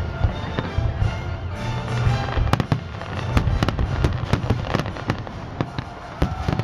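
Fireworks display: aerial shells bursting one after another in a dense barrage, with crackling and a constant low rumble of reports.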